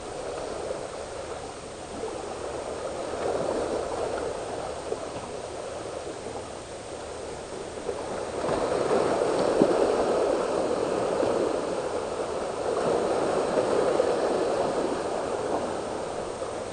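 Sea waves washing and splashing among the boulders of a rock breakwater, surging louder three times and ebbing in between.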